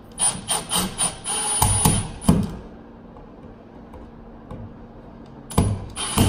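Milwaukee Fuel cordless impact driver run in short trigger bursts, driving the switch's mounting screws into the electrical box. There is a string of quick whirring pulses for about two and a half seconds, a pause, then another run starting near the end.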